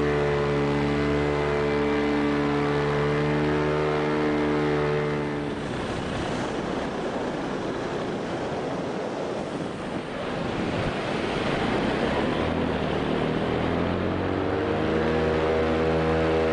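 Paramotor engine running at a steady throttle, then pulled back about five seconds in so that a rush of wind takes over, then throttled up again with its pitch rising near the end.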